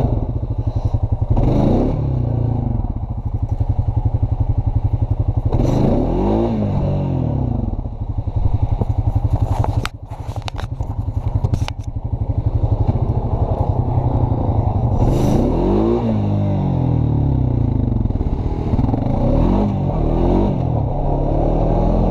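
Honda Rancher 420 ATV's single-cylinder engine running under way on pavement, its pitch rising and falling several times as the throttle is worked. A short burst of clatter about halfway through.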